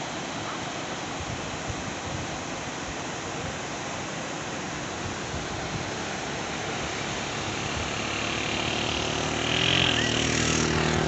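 Surf washing on the shore under wind noise. Over the last few seconds a motor vehicle's engine comes up and grows steadily louder, with a brief wobble in pitch near the end as it draws close.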